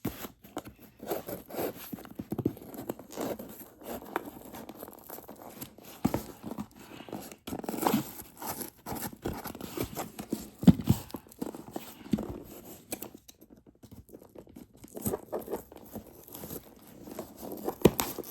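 A package being opened with scissors: irregular cutting, tearing and crinkling of tape and packaging, with many small handling clicks and knocks.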